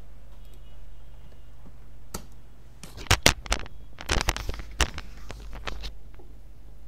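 Computer keyboard and mouse clicking in a quick, irregular run of sharp taps for about four seconds, starting about two seconds in, over a steady low electrical hum.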